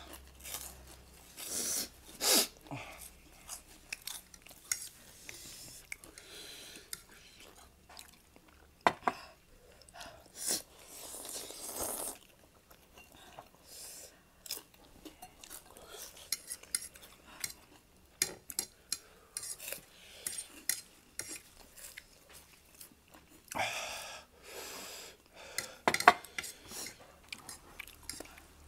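Eating sounds: metal forks clinking and scraping on ceramic plates, with tortilla chips crunching and chewing, in irregular clicks and short bursts.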